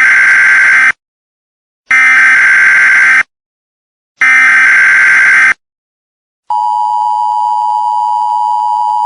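Emergency Alert System tones: three bursts of SAME header data, each just over a second long with about a second between them. About six and a half seconds in, the steady two-tone attention signal starts, a little quieter than the bursts.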